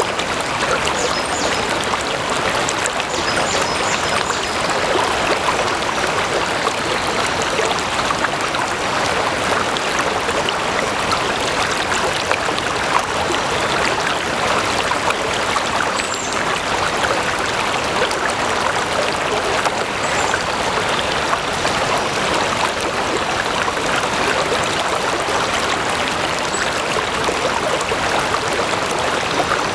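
Water flowing steadily in a stream.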